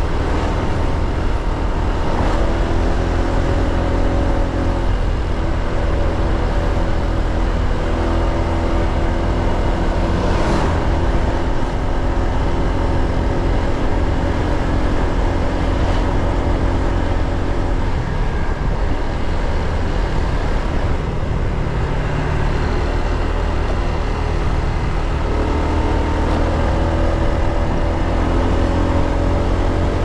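Motor scooter engine running under way, its pitch steady for long stretches and rising as it speeds up, over a heavy low rumble of road and riding noise.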